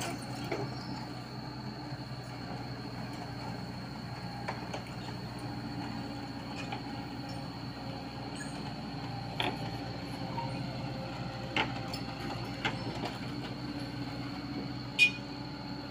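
Komatsu PC75UU mini excavator travelling on its crawler tracks: a steady engine hum with the tracks clanking and squeaking as they roll. A few sharp clanks stand out, the loudest about fifteen seconds in.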